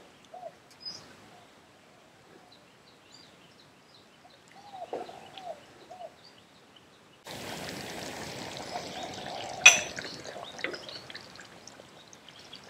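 Thick Massaman curry bubbling in a wok, soft bubbles popping as it simmers and is stirred. About seven seconds in a steady hiss starts, with a single sharp click a couple of seconds after.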